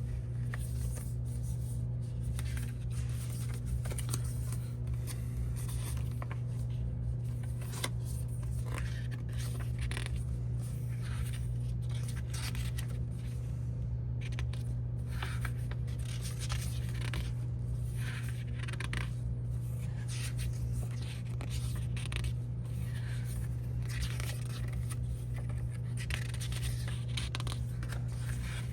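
Paper and plastic rustling and scraping as an album's photobook and inserts are handled and unpacked, in many short scratchy strokes over a steady low hum.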